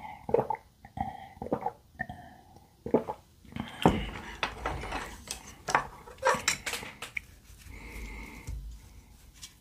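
A person gulping a drink from a glass mug, then a heavy thud about four seconds in as the mug is set down on the table. Sharp clicks and clinks of wooden chopsticks against a pan and a fried pancake follow.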